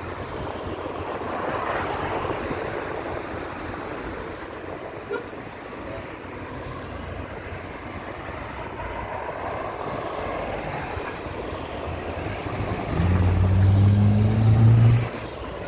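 Road traffic passing at a roundabout: steady tyre and engine noise that swells and fades as vehicles go by. Near the end a vehicle passes close, and its engine gives a louder, low drone that rises slightly in pitch for about two seconds.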